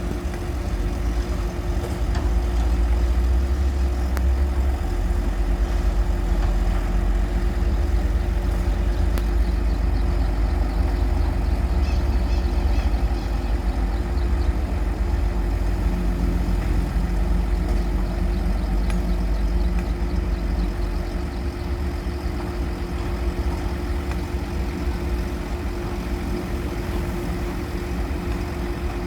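A heavy engine running steadily with a deep rumble and a constant hum above it, the rumble easing somewhat about two-thirds of the way through.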